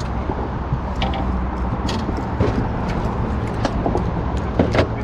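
A steady low engine hum, with a few short sharp clicks and knocks over it.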